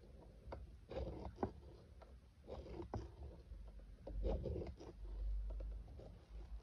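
Ballpoint pen scratching around the slot of a plastic spirograph wheel in strokes of about half a second, with a few sharp clicks in between. A low rumble of handling comes near the end.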